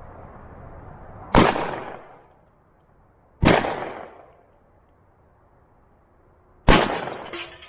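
Three single gunshots, the first about a second and a half in, the next two and three seconds apart, each a sharp crack with a short echoing tail.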